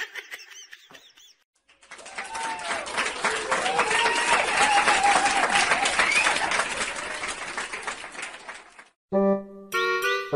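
Applause with cheering for about seven seconds, then a short jingle of musical tones near the end.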